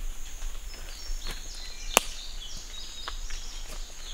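Footsteps crunching through dry leaf litter and twigs in the woods, with scattered crackles and one sharp snap about two seconds in. A steady high insect drone runs behind.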